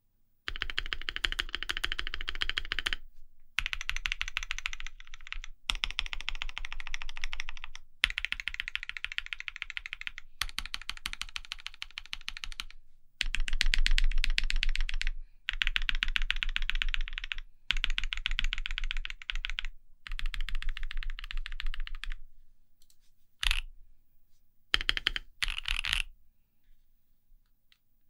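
Fast typing on a polycarbonate KBDFans D65 mechanical keyboard with modified Creampacas switches (JWK bottom housings), a polycarbonate plate and NK BOW keycaps: rapid key clacks in runs of two to three seconds with short pauses, thinning to a few brief bursts near the end.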